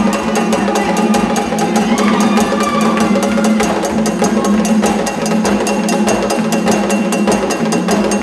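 Live Haitian drumming for a Gede dance: hand drums with a fast, even run of sharp clicks on top, about five or six a second, and voices singing along.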